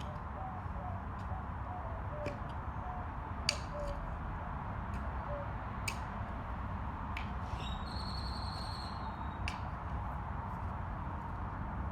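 Outdoor background rumble with birds calling: a run of short, low notes through the first few seconds and a buzzy, high call lasting about a second and a half near the middle. A few sharp clicks sound now and then.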